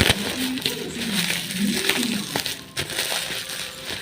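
Intercom packaging being handled and opened: crinkling and rustling with scattered sharp clicks, and faint voices in the background.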